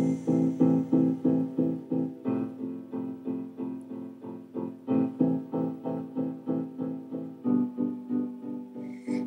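Instrumental break in a song: a keyboard strikes the same chord over and over in even pulses, about three a second, with no singing.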